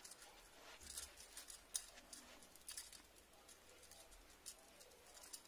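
Faint, irregular soft pats of a damp beauty-blender makeup sponge dabbing foundation onto the face.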